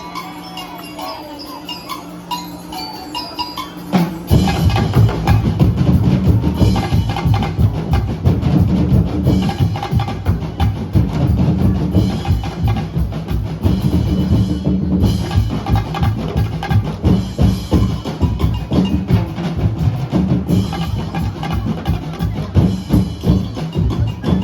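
Street-dance festival drumming: a quieter stretch of music gives way, about four seconds in, to loud, fast, driving drums with heavy bass-drum beats.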